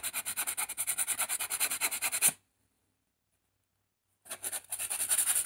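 Sandpaper wrapped on a cork block rubbed over a carved wooden butter knife in quick back-and-forth strokes, rounding and smoothing its edges. The sanding cuts off abruptly about two seconds in, leaving two seconds of total silence, then starts again near the end.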